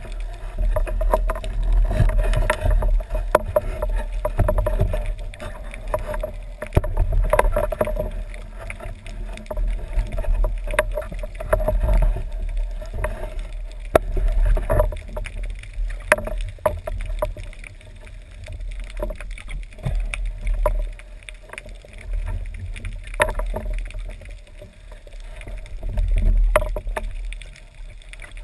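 Underwater noise picked up through a camera's waterproof housing: a low, muffled water rumble with scattered sharp clicks and knocks from the diver's speargun and gear. A faint steady hum runs through about the first half.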